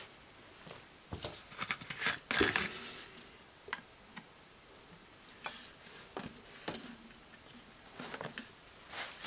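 Scattered clicks, light knocks and rustles of a plastic bottle of isopropyl alcohol being picked up and handled over a silicone workbench mat, busiest a second or two in and again near the end.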